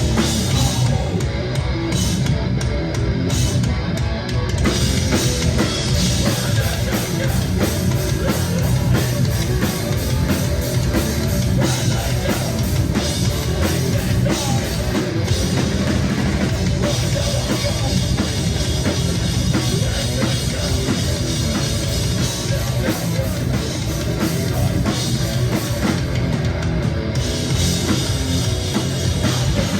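A live rock band playing loud, with electric guitar and a drum kit pounding without a break.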